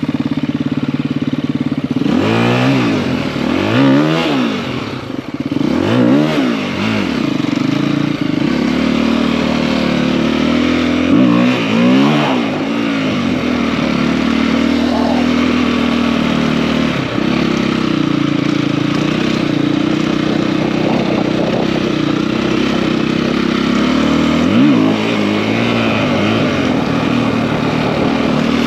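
KTM EXC-F four-stroke enduro motorcycle with a 280 big bore kit, its single-cylinder engine revving up and down in a string of quick throttle blips during the first half, then running at a steady speed, with one more short blip near the end.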